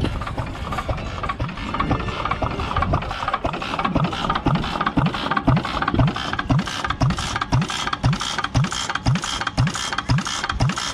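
Small International Harvester (IHC) stationary hit-and-miss gas engine running with a steady beat of about two strokes a second, with the clicking of its valve and governor gear. It is louder from about four seconds in.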